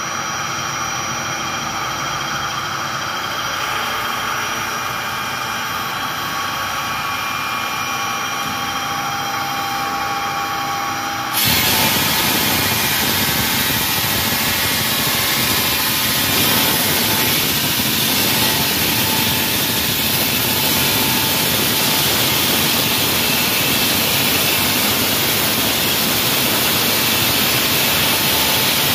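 Wall saw running steadily with a whining tone. About eleven seconds in, the sound jumps abruptly to a louder, harsher rushing noise that carries on steadily.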